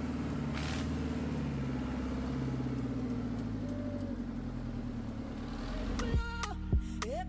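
Steady low hum of a running motor vehicle. About six seconds in, music with a beat and a singing voice comes in over it.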